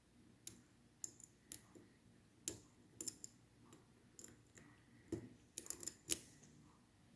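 Small sharp metallic clicks of a lock pick working the sidebar finger pins inside a Schlage Primus high-security lock cylinder, a dozen or so at irregular intervals.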